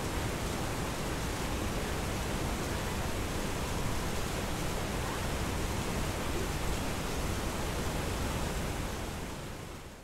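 Partly iced-over waterfall rushing steadily, a dense even roar of falling water; it fades out near the end.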